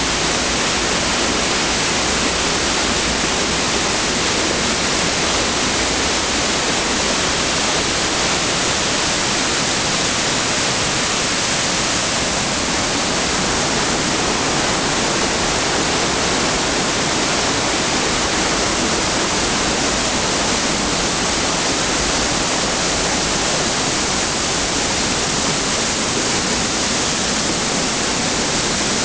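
Steady, loud rush of a mountain brook cascading over boulders and down a waterfall in a narrow rock gorge.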